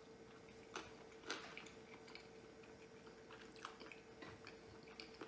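Faint close-up chewing of a sushi roll, with a few soft, wet mouth clicks and smacks scattered through, over a faint steady hum.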